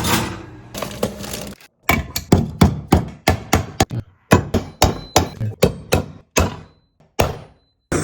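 Rapid series of hard hammer knocks on two-stroke engine parts, about three a second, each with a short ring, broken off abruptly a few times.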